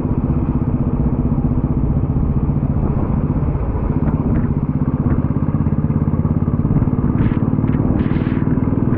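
Motorcycle engine running steadily under way, with wind and road noise, picked up by an action camera's built-in microphone. A few short hissing bursts come through about seven to eight seconds in.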